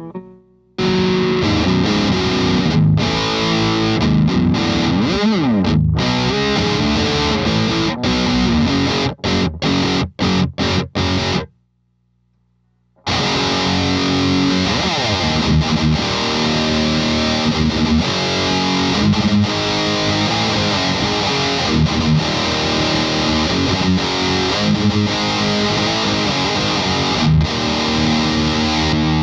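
Heavily distorted electric guitar riffing through an overdrive pedal into a tube amp, with choppy palm-muted stabs. About halfway it stops for a second or so, leaving only a low amp hum, then starts again.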